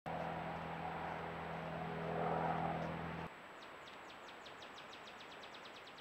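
A steady low mechanical hum, like a distant engine, swelling briefly and then cutting off about three seconds in. It is followed by a bird's rapid series of short high notes, each falling in pitch and coming faster and faster. A faint high-pitched whine runs underneath throughout.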